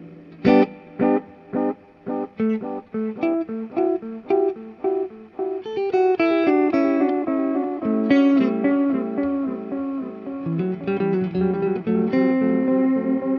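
Electric guitar played through an Earthquaker Devices Disaster Transport SR modulated delay pedal. Single picked notes, spaced evenly, quicken into a fast run of notes and end on a held chord near the end.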